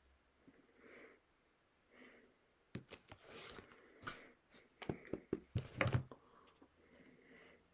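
Handling noise of a book being opened and held close, with hands brushing and tapping: a cluster of soft clicks and knocks, loudest about five to six seconds in, after a few quiet breath-like sounds.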